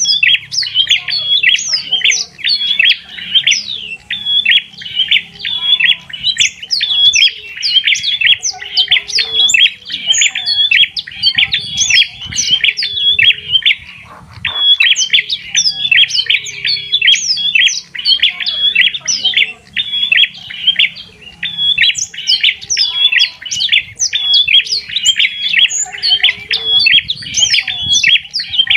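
Birds chirping and calling rapidly and without pause, a dense run of short, high, sweeping notes, with a brief break about halfway through.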